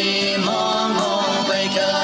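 Konyak gospel song played from an old audio cassette: voices singing a melody over steady musical accompaniment.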